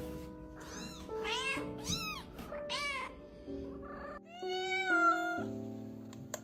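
Cat meowing: a few short meows that rise and fall in pitch, then one longer meow about four and a half seconds in, over background music.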